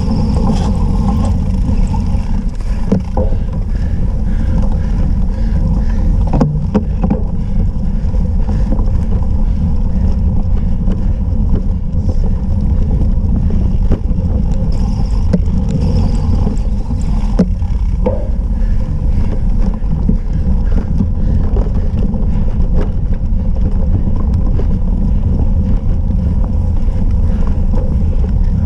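Steady, loud wind buffeting and rumble on a bike-mounted action camera's microphone while riding over rough grass, with a few short rattling knocks from the bike over bumps.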